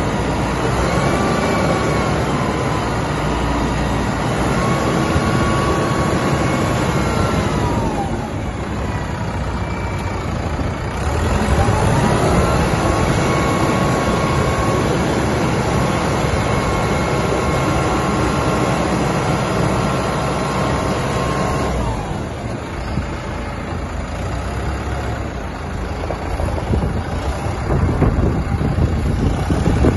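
Engine of a self-loading concrete mixer truck running at raised revs to swing the mixer drum, with a whine that follows the revs. It drops back toward idle about eight seconds in, revs up again about three seconds later, and drops once more near the 22-second mark.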